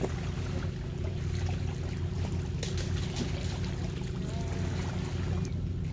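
Steady low drone of a boat engine running out on the water.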